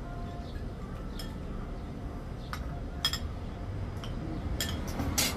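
Metal spoons and forks clinking against plates and bowls during a meal: a few scattered short clinks, the loudest cluster near the end.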